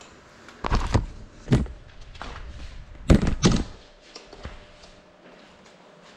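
A small FPV cinewhoop drone (GEPRC Cinelog 35) crashing and tumbling onto a tabletop: several hard knocks and thuds over about three seconds, the loudest two about three seconds in, then it lies still.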